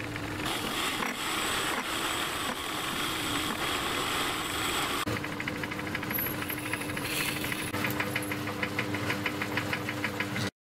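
Myford lathe running under cut on a small metal stud: first a turning cut from the tool post, then drilling into the end of the spinning part from the tailstock drill chuck, with a fast, regular ticking during the drilling.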